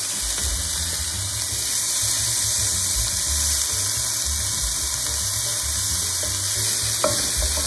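Chopped onion sizzling in hot oil with garlic in a nonstick pot, stirred with a wooden spoon: a steady hiss.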